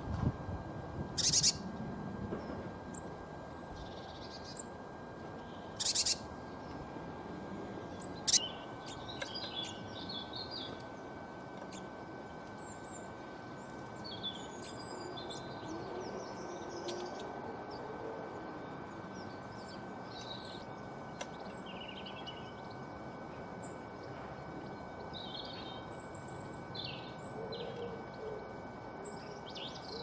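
Small garden songbirds chirping: scattered short, high calls throughout, with three louder brief bursts about a second in, around six seconds and around eight seconds, over a steady background hum of outdoor noise.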